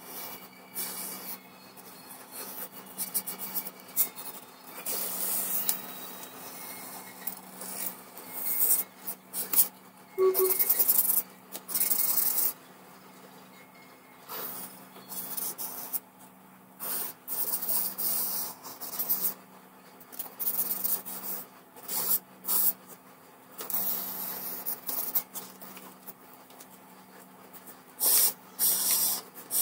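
Felt-tip marker tip scratching across paper in irregular strokes, some short and quick and some drawn out over a second or two, over a faint steady hum.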